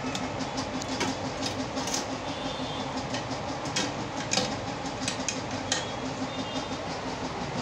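Commercial stainless-steel kitchen food-processing machine running, its electric motor giving a steady low hum, with frequent light metallic clicks and clatters and a couple of sharper knocks about four and a half and six seconds in.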